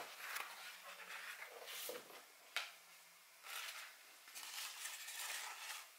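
Faint handling sounds from a clear plastic storage tub and the plant and paper towel inside it: soft rustles and light knocks in several short bouts, with one sharp click about two and a half seconds in.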